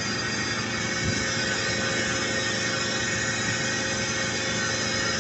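Steady running machinery: an even mechanical drone with a high, constant whine over it.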